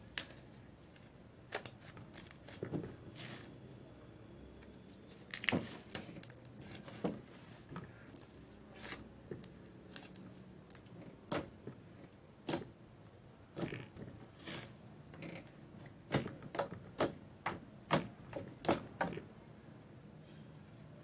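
A large mass of slime being kneaded and stretched by hand, giving irregular wet clicks and pops, with a quicker run of them near the end.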